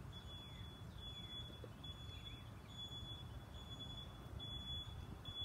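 Truck backup alarm beeping steadily and faintly, one long high beep about every second, over low outdoor rumble.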